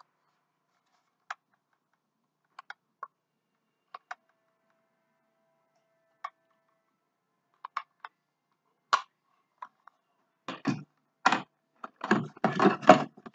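Hard plastic parts of a unicorn taco holder clicking and knocking together as they are handled and fitted, in scattered single clicks, then a quicker, louder clatter of handling near the end.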